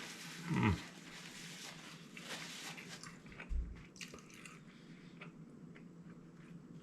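A man chewing a mouthful of burger, with soft, wet mouth noises. A short falling vocal sound comes just after the start, and a low thump about three and a half seconds in.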